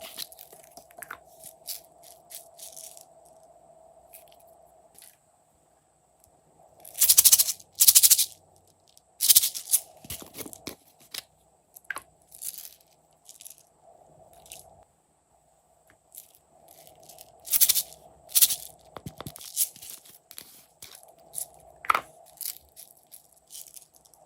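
Slime being squeezed and pressed by hand, giving off irregular clusters of sharp crackling pops with short quiet gaps between them.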